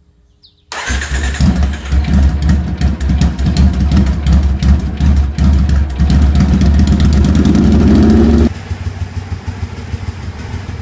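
A Triumph Speedmaster parallel-twin motorcycle engine running loud through Emgo aftermarket exhaust pipes after a brief silence at the start. It is blipped and revved unevenly, then held at raised revs with a slowly rising pitch, and cuts off abruptly near the end to a much quieter idle.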